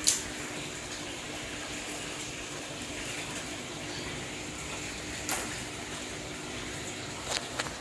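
Steady running water of a fish tank with a low hum. Sharp clicks sound at the start, again about five seconds in, and twice in quick succession near the end.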